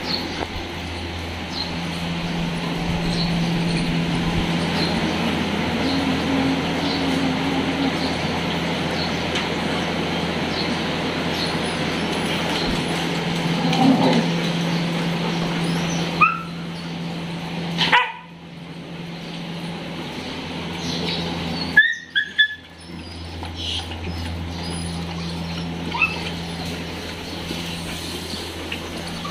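A group of dogs giving scattered short barks and yips over a steady low hum.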